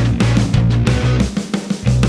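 Rock instrumental background music: electric guitar over bass and a steady drum beat, the bass dropping out briefly near the end.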